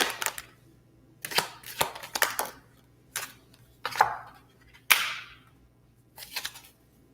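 Tarot cards being handled and slapped down on a table: sharp snaps in short bunches, about a second apart, some followed by a brief brushing slide.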